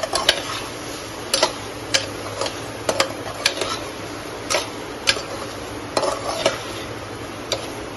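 Slotted spatula stirring and scraping a thick potato curry in a metal pressure-cooker pot, with irregular clicks of the spatula against the pot about every half second to second over a steady low sizzle. The stirring is kept up without pause so the freshly added yogurt does not split.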